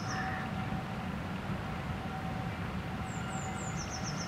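Steam train running past in the distance, a steady low rumble. A songbird sings over it: the end of a trill just at the start, then a new phrase about three seconds in, a few quick descending notes running into a rapid trill.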